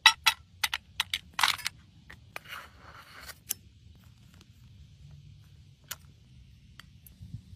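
Sharp clicks and taps, several in the first two seconds, as broken crayon pieces drop into an empty tin can, with a longer scrape about a second and a half in. After that come only a few scattered clicks over a faint steady hiss.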